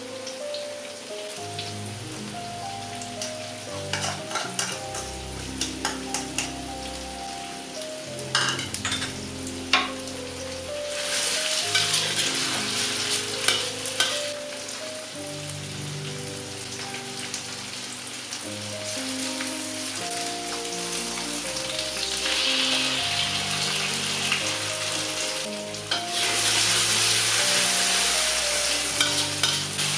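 Shallots, chillies and tomato sizzling in hot oil in a stainless steel wok, stirred with a metal spatula that clicks and scrapes against the pan. The sizzle grows louder about eleven seconds in and again a few seconds before the end, over soft background music.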